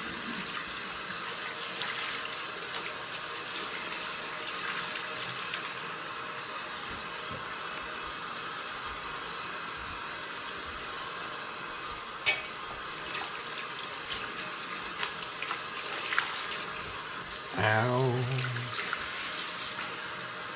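Mixer tap running steadily into a ceramic washbasin as the sink is rinsed, with one sharp click about twelve seconds in.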